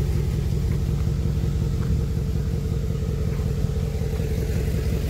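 Pickup truck engine running at low speed as the truck creeps forward along the road: a steady low drone with a rapid, even pulse.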